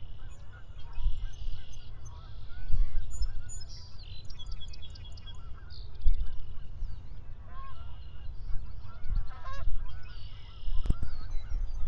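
Birds calling at sunrise: many short chirps and arching calls overlapping, with some buzzy calls among them, over a low, uneven rumble. A sharp click sounds near the end.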